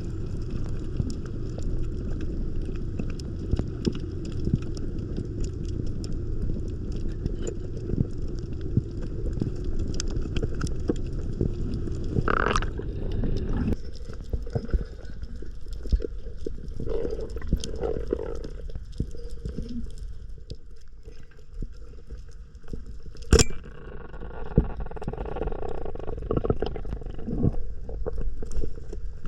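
Muffled underwater water noise: a dense low rumble with scattered clicks and crackles, which thins out about halfway through. There is a brief gurgling swell about twelve seconds in and a sharp knock about twenty-three seconds in.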